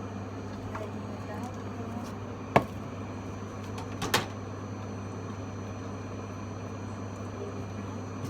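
A steady low electrical hum, with a sharp knock about two and a half seconds in and a quick double knock about a second and a half later.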